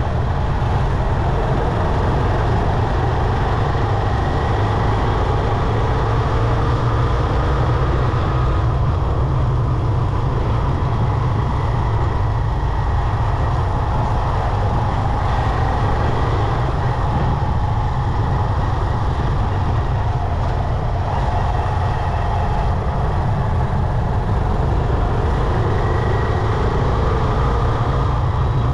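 Motorcycle on the move in city traffic: a steady low rumble of engine, wind and road noise, with the engine note drifting gently up and down in pitch a few times.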